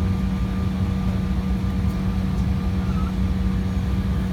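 Steady airliner cabin hum with the aircraft on the ground before takeoff: a constant drone from the running jet engines and cabin air system, with a few unchanging tones over it.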